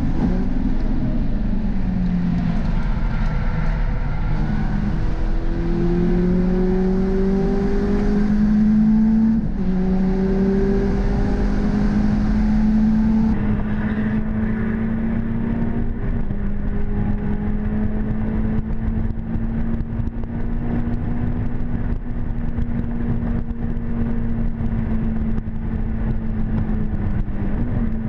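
In-cabin sound of hot-hatch four-cylinder engines at full pace with wind and road noise. The Peugeot 306 GTi6's 2.0 engine pulls hard with rising revs and a gear change about nine seconds in. From about halfway the Renault Clio 197's 2.0 engine takes over, held at high, near-steady revs.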